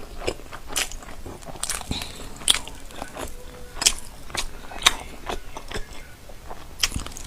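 Crunchy food bitten and chewed close to the microphone: a run of sharp, crisp crunches at an irregular pace.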